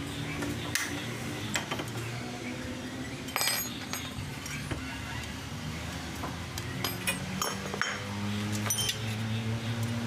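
Metal hand tools clinking and knocking against steel parts in irregular sharp strikes while a wheel bearing assembly is taken apart. A steady low hum runs underneath.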